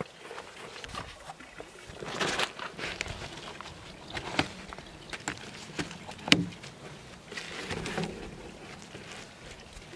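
Folding canvas camp cot being put together: the canvas rustles and scrapes as the tubular frame is fitted into it, with scattered clicks and knocks from the frame. The sharpest click comes about six seconds in.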